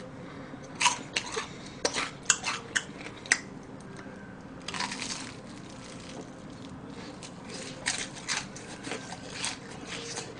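Crispy Mom's Touch fried chicken being bitten and chewed close to the microphone, with two spells of sharp crunches.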